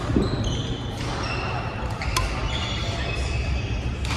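Shoes squeaking on a badminton court floor in a large hall, short high squeaks again and again, with one sharp shuttlecock hit about two seconds in.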